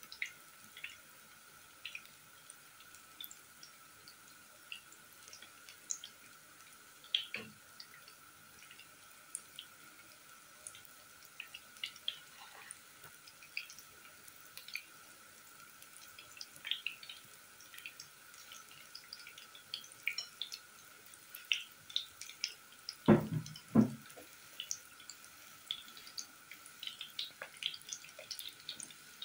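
Tuna fritters shallow-frying in hot oil in a pan: scattered pops and crackles of spitting oil, with two louder knocks close together about three-quarters of the way through.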